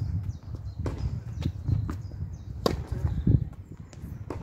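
Tennis rally: several sharp pops of rackets striking the ball and the ball bouncing, the loudest about two and a half seconds in, over a steady low rumble.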